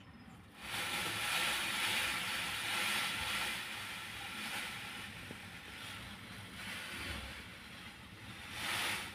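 A peacock rattling its fanned train at a peahen: a dry rustling hiss of shivering feathers that starts abruptly about half a second in, slowly fades, and surges again briefly near the end.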